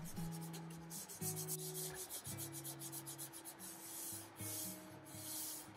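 A cloth rubbing an oil finish into wood in repeated hissing strokes, over soft background music of held notes that change about once a second.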